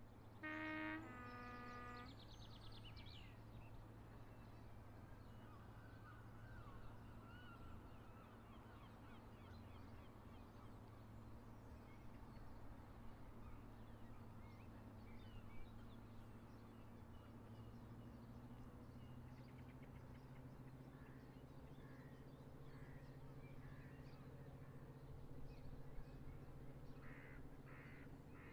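Distant two-tone diesel locomotive horn, a short higher note then a longer lower one, about half a second in. After it comes a faint steady low hum, and a few short bird chirps near the end.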